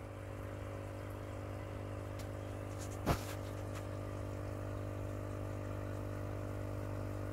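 Steady electric hum of an aquarium air pump driving the tank's sponge filters, with one short click about three seconds in.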